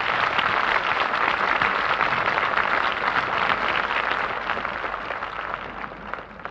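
Crowd applauding: dense clapping that is at its loudest in the first few seconds, then slowly dies away near the end.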